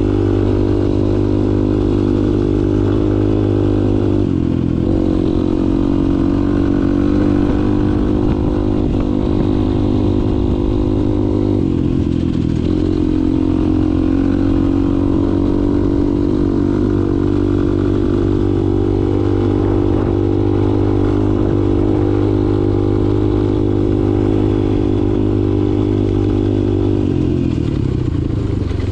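2002 Honda XR200's single-cylinder four-stroke engine running under way on a dirt bike, steady and loud. Its pitch shifts a few times with throttle and gear changes.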